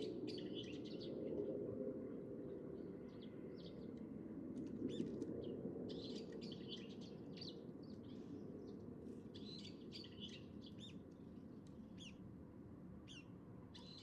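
Small birds chirping in repeated bursts of short, high chirps, a cluster every few seconds, over a steady low background rumble.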